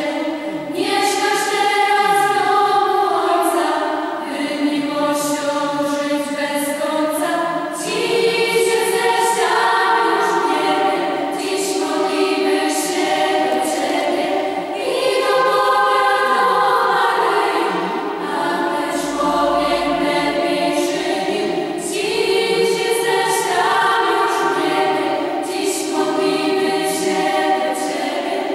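A girls' and children's choir singing together in long held phrases, the sound dipping briefly between phrases.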